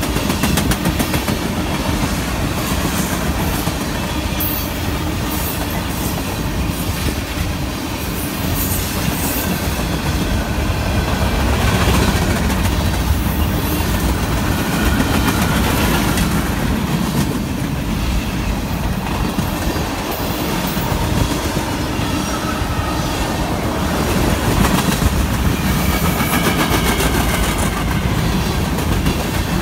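Freight train cars rolling past close by: a steady rumble of steel wheels on the rails with clickety-clack as the wheels pass over the rail joints.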